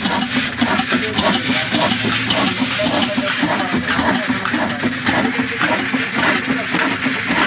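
18 hp Kala Desi diesel engine running steadily, with an even, regular beat.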